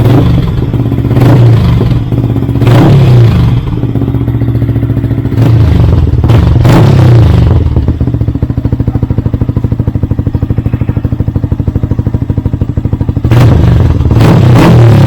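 Yamaha R15 v3's 155 cc single-cylinder engine through an aftermarket Akrapovic dual-hole exhaust, revved in several short blips, settling to idle for about five seconds, then revved again near the end. The exhaust note sounds full.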